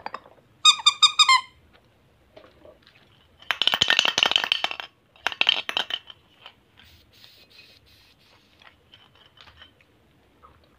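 A quick run of about eight short, high squeaky chirps from a handheld spiky light-up bunny toy. Then candy packaging is handled close to the microphone, rattling and crinkling for about a second and a half and again briefly, followed by faint clicks.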